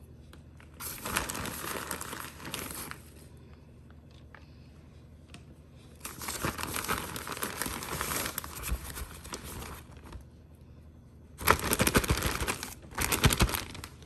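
Plastic bag of shredded cheddar cheese crinkling as handfuls are pulled out, in several bursts with pauses between, the loudest two near the end.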